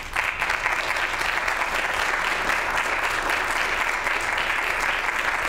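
Audience applauding steadily, starting at once and holding an even level.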